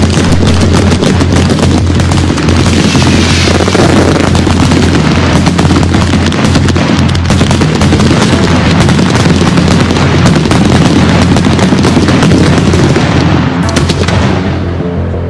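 A large barrage of firecrackers going off, a dense, unbroken run of loud, rapid bangs and cracks like machine-gun fire, thinning out near the end.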